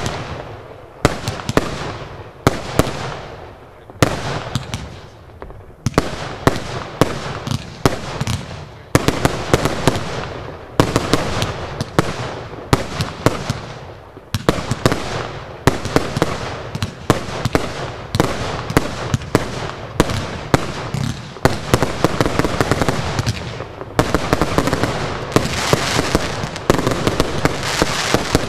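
Royal Fireworks aerial fireworks firing in rapid volleys: sharp bangs every second or two, with a dense rattle of smaller reports between them, thickest near the end.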